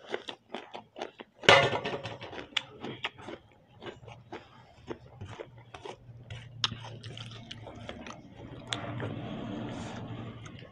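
A loud clatter about a second and a half in as a stainless steel plate comes down on the table, ringing briefly. Then light clicks of fingers against steel plates and chewing as rice is eaten by hand, with a low steady hum in the second half.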